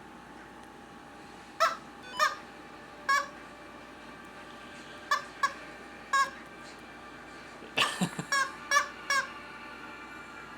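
Squeeze toy turkey (rubber chicken-style toy) being squeezed, giving short squeaky squawks: about six spaced out, then a quick run of several near the end.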